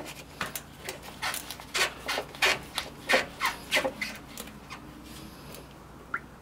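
Rubber lower radiator hose being twisted and worked loose by hand from its radiator outlet on a Nissan Xterra: a run of short rubbing, squeaky scrapes, about two or three a second, that dies down about four seconds in.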